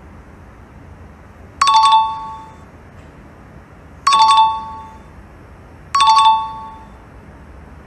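Two-note electronic chime, doorbell-like, ringing out three times about two seconds apart, each fading over about half a second, over a faint steady background hiss: the TikTok quiz filter's cue as each new question card comes up.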